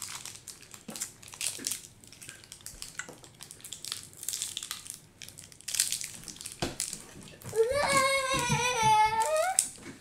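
Small plastic figurines clicking and knocking as they are set down and moved about on a wooden tabletop, in many short taps. Near the end a child's voice holds a long, wavering note for about two seconds.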